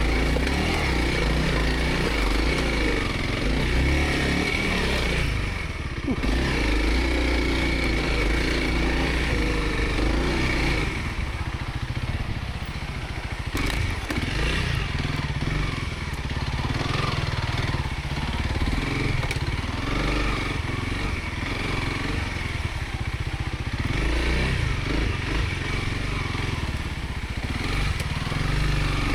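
Dual-sport motorcycle engine running while riding a dirt trail, throttle rising and easing off with a couple of brief let-ups, mixed with wind and trail rumble.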